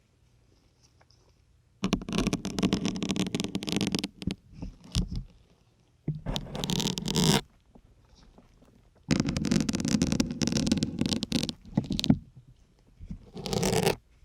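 Syringe needles pushed into a firm grey sponge, five drawn-out scraping, crackling pushes with short pauses between, the longest lasting about three seconds.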